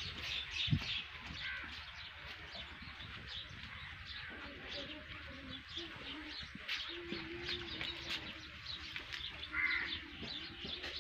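Birds chirping, many short repeated chirps, with a dove cooing from about four seconds in. A single thump sounds just under a second in.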